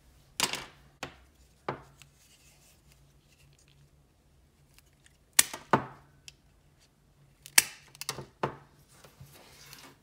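Sharp clicks and snaps from the stainless steel jaws of an electrician's multi-tool's spring-loaded wire strippers working on a white insulated wire. They come in three scattered groups: three clicks in the first two seconds, two about halfway through, and three more near the end.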